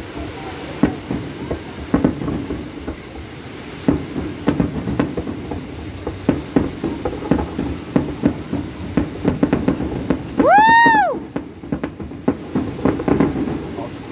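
A fireworks display going off in a steady run of bangs and crackling pops. About two-thirds of the way through comes one brief loud whistle that rises and then falls in pitch.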